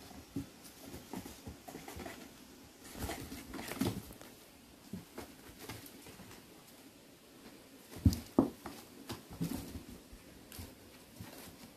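Light, irregular taps and rustles of kittens eating dry kibble from metal bowls and moving over cardboard boxes, with a pair of louder knocks about eight seconds in.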